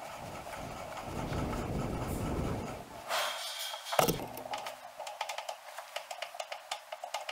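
Hands handling metal parts and tooling on machine-shop machines: scraping and shuffling, a sharp knock about four seconds in, then a run of small sharp clicks.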